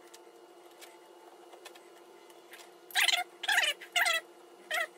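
A run of short, high, animal-like calls, five in quick succession starting about three seconds in, over a faint steady hum.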